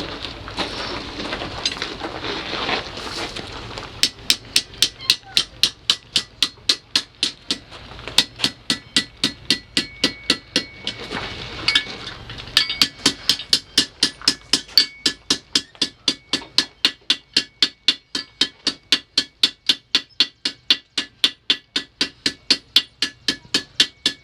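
Blacksmith's hammer striking hot iron on an anvil in a steady rhythm of about three blows a second, with a faint ring from the anvil. The hammering starts a few seconds in and breaks off briefly about halfway through.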